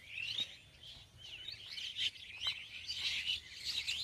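Birds chirping: a dense run of many short, high calls overlapping one another without a break.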